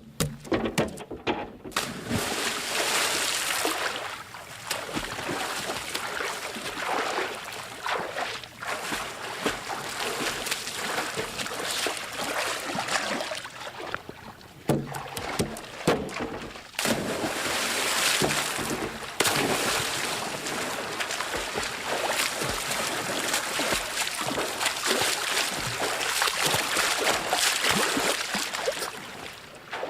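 Swimmer's strokes splashing and churning through water, a dense run of splashes that swells and eases with a few brief lulls.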